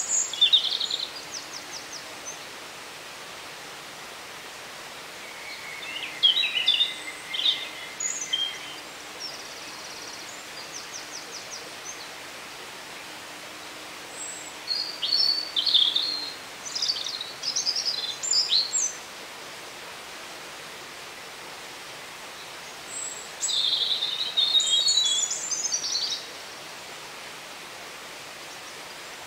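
Woodland songbirds singing in four short bursts of varied, chirpy phrases several seconds apart, over a steady background hiss.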